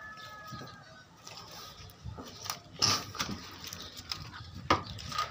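Mango tree leaves and twigs rustling as branches are handled and pulled down by hand, with a few sharp clicks and snaps from about two seconds in.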